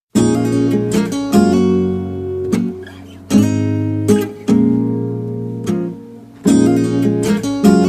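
Acoustic guitar strumming chords with no singing. It starts a fraction of a second in, and the chords are struck roughly once a second, each left to ring out.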